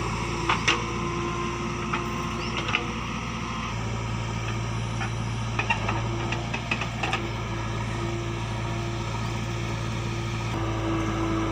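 Diesel engine of a JCB 3DX backhoe loader running steadily, with several sharp knocks about half a second in and a cluster of them around the middle.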